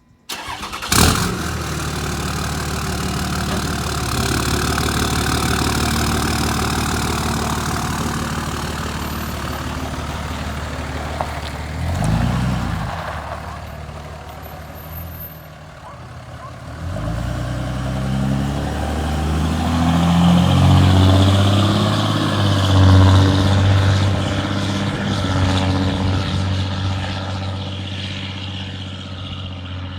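Dodge 3500's Cummins diesel engine running loud through a straight-piped 5-inch exhaust, with a sharp knock about a second in. It revs briefly about twelve seconds in, then pulls up again in rising pitch past the middle before easing off.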